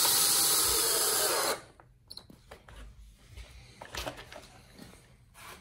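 Cordless drill driving a screw through thin aluminum flashing into a pine board, the motor running steadily for about a second and a half with a slight rise in pitch, then stopping abruptly. Light clicks and small knocks follow as loose screws are picked up by hand.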